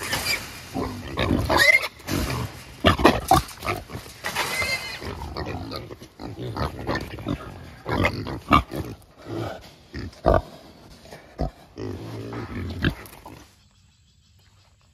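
Wild hogs squealing and grunting in a dense, irregular string of cries that stops shortly before the end.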